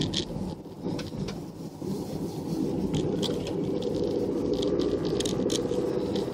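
Vehicle engine and road noise heard from inside the moving vehicle, getting louder from about two seconds in, with scattered light clicks and scrapes.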